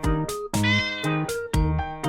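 Background music with a steady beat of plucked and keyboard notes, and a domestic cat meows once about half a second in.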